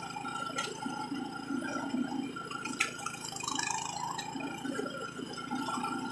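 A Senci 7.5 hp single-cylinder four-stroke petrol engine running steadily on a belt-driven push mower as it cuts through grass, with a few sharp ticks over it.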